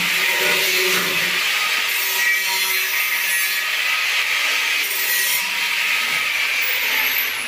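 A hacksaw blade, held by hand, sawing into a stainless steel railing tube with steady back-and-forth strokes.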